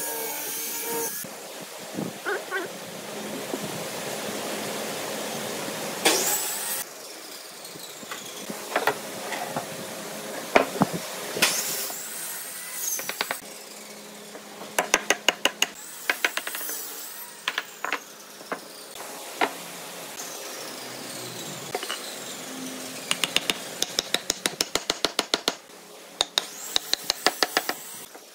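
Woodworking shop sounds that change abruptly several times, with isolated knocks and runs of rapid sharp taps, about six a second, over a steady tool noise.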